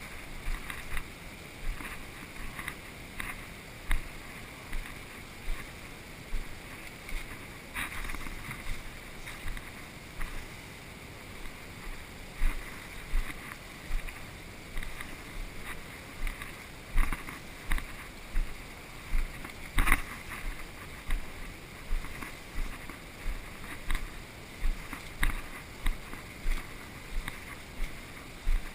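Footsteps of a person walking at a steady pace, one footfall about every three quarters of a second, with rustling and a few sharper clicks.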